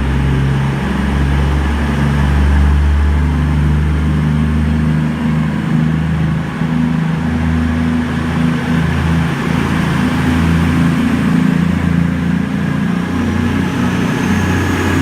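A CrossCountry Class 221 Voyager diesel-electric train running its engines: a steady, throbbing engine note that shifts in pitch now and then. A faint rising whine comes in near the end.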